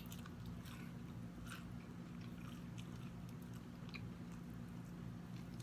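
Close-miked chewing of fried fish: small scattered wet mouth clicks and smacks over a steady low hum.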